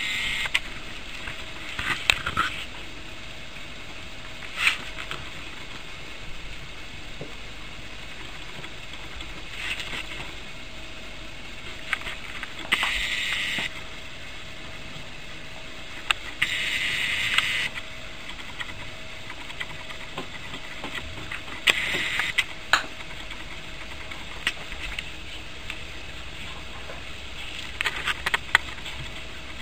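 Puppies playing: scattered sharp clicks and scuffling, with several short hissy bursts about a second long, over a steady faint hiss.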